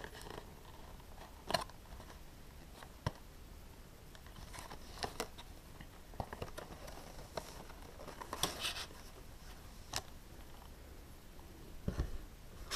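Faint scattered clicks and taps from handling a cardboard trading-card box being worked free of its tight packaging, with a brief rustle about eight and a half seconds in.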